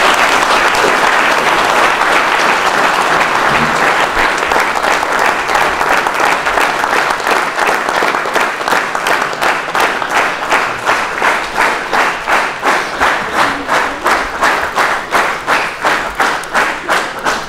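Audience applause, a dense wash of many hands clapping, which about halfway through settles into rhythmic clapping in unison at about two and a half claps a second.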